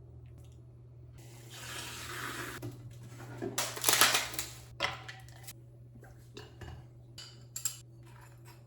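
Kitchen sounds: dishes and cutlery clinking and clattering, with two bursts of rushing noise in the first half, the louder one about four seconds in. A steady low hum runs underneath.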